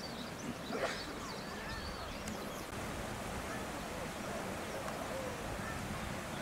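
Outdoor ambience: a steady background hiss with scattered short bird chirps, and one louder brief call about a second in.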